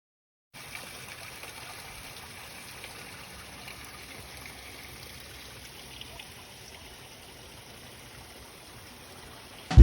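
Steady rushing of running water, like a brook or stream, after a brief dead silence at the start.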